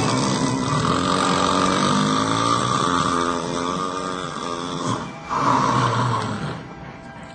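A person snoring loudly: a long, drawn-out snore with a wavering pitch, then a shorter snore about five seconds in that fades near the end.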